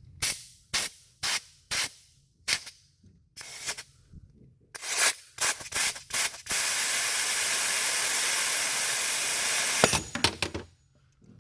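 Compressed-air blow gun hissing into a motorcycle rear brake caliper to push the corroded piston out of its bore. It starts with a string of short puffs, then one steady blast of about three seconds, then a few more quick puffs.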